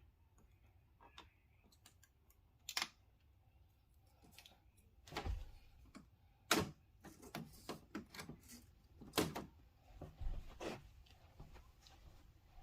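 Irregular clicks, taps and light knocks of an LCD TV's plastic and metal parts being handled and set down during disassembly, scattered unevenly with a few sharper knocks.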